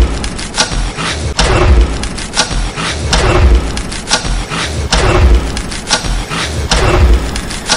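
Cinematic trailer percussion: deep booming hits in a steady beat, a little under one a second, with sharp strikes and short swooshes between them.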